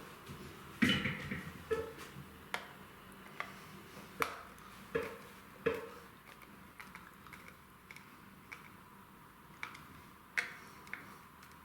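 About a dozen sharp, irregular clicks and small knocks from hand work refitting a brass light switch: the switch plate, screws and screwdriver being handled, some knocks with a brief metallic ring.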